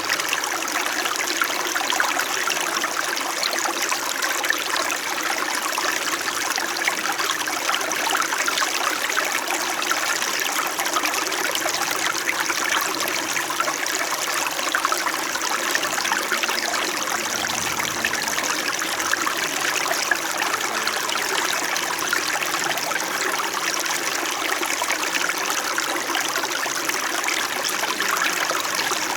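Small stream flowing and babbling steadily over rocks, a gentle trickle without breaks.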